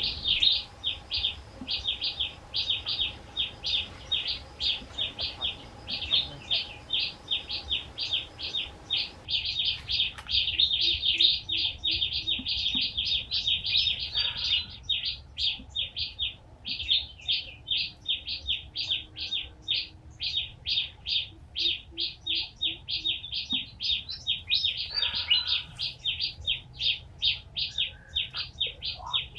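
Rapid, unbroken high chirping, about four short chirps a second, from a bird.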